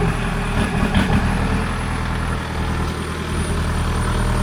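Volkswagen Jetta's engine running steadily as the car is driven in reverse on its freshly rebuilt manual transmission, with two short knocks in about the first second.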